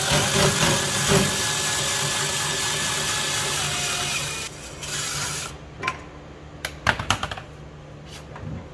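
Cordless drill driving the crank of a trailer tongue jack stand to run it down: steady running with a few held tones, stopping about halfway through. A few sharp metallic clanks follow.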